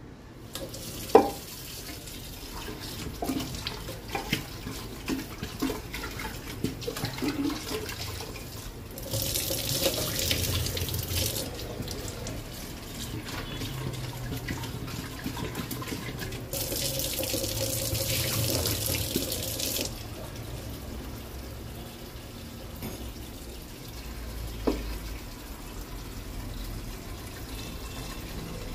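Tap water running into an aluminium pressure cooker in a steel kitchen sink as potatoes are rinsed by hand, the flow swelling louder twice, about a third of the way in and again past the middle. Short knocks and clatter of the pot and potatoes against metal, mostly in the first quarter and once more near the end.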